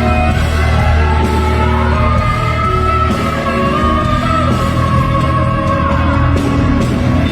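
Live concert recording of a female singer belting a long held high note over a full band with a heavy bass. The held note runs from about two seconds in to about six seconds in, then the line moves on.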